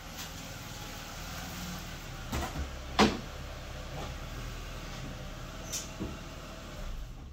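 Ford BA Falcon's 4.0-litre inline-six engine idling steadily, with a few knocks or clunks over it, the sharpest about three seconds in. The engine cuts off near the end.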